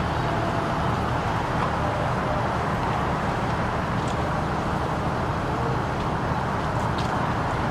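Steady low rumble of vehicle engines and traffic, with no sudden events.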